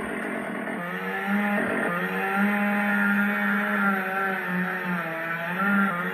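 Recorded chainsaw sound effect played through a replica prop chainsaw's built-in speaker. The idling sound gives way, about a second in, to the revving chainsaw sound set off by the trigger button; its pitch holds fairly steady with small wavers and a brief dip near the end.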